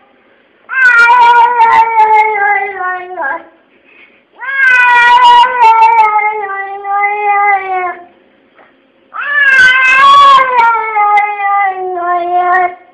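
A domestic cat yowling in three long, drawn-out, speech-like meows, each lasting three to four seconds and sliding down in pitch from start to end, with short pauses between them.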